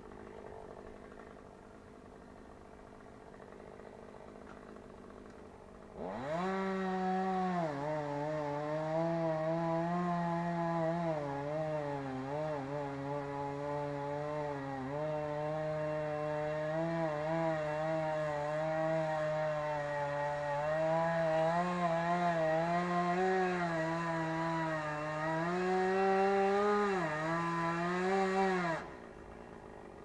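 Chainsaw revving up about six seconds in and cutting spruce at high revs for over twenty seconds, its pitch dipping and recovering under the load of the cut, then dropping back off near the end.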